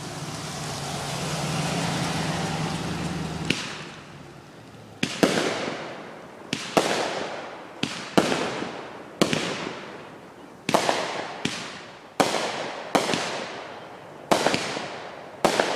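Neighbourhood aerial fireworks going off: a single crack about three and a half seconds in, then a string of sharp booms roughly once a second, each trailing off in a decaying rumble. Before the booms there is a steady rushing noise with a low hum.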